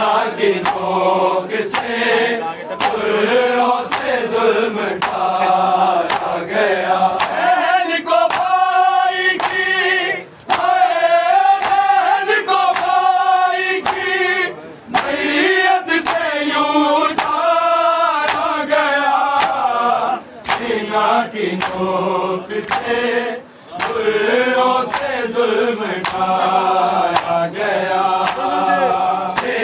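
Men's voices chanting an Urdu noha in long rising and falling phrases, with short breaks between lines. A steady beat of sharp slaps runs under the voices, the rhythm of matam (chest-beating) that accompanies the lament.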